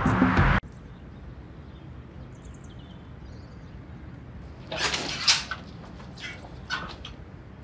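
Background music cuts off in the first second, leaving quiet room tone. About five seconds in, a door opens with a brief loud scrape, followed by a couple of light knocks.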